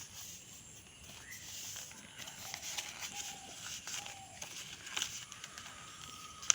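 Paper rustling and creasing with scattered light crackles as an origami crane base is turned over and its edges are folded to the centre line.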